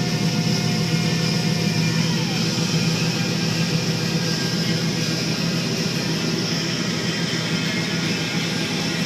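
John Deere 9560 combine running steadily while harvesting corn: a constant low machine drone with no change in level.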